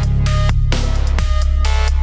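Electronic dance music with a heavy sustained bass line, sharp percussive hits and synthesizer notes.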